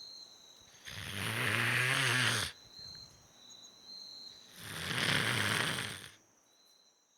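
A man snoring loudly: two long snores about three and a half seconds apart, each lasting about a second and a half, the first with a low buzzing tone.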